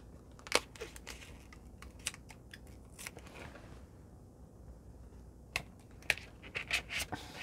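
Light handling of paper and vellum: scattered soft clicks, taps and rustles as a small piece of vellum is handled and pressed down onto a planner page.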